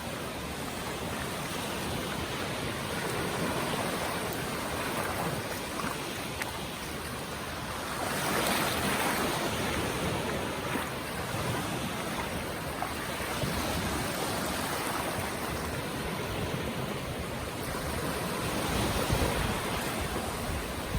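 Ocean surf washing onto a beach: a steady rushing hiss that swells as waves break, loudest about eight seconds in.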